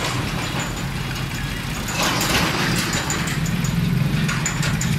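Road traffic passing close by: a tractor's engine and motorcycles give a steady low engine hum that gets louder about two seconds in.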